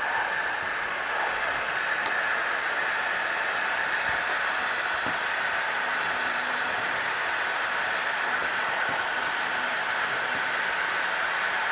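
Heat gun running steadily, its fan blowing with an even hiss.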